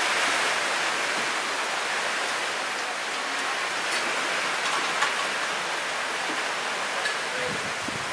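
Steady rain falling, an even hiss with a few faint taps scattered through it.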